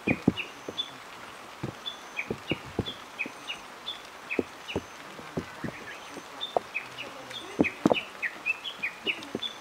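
Birds chirping with quick short notes, over irregular dull taps coming a few per second, the loudest pair about eight seconds in.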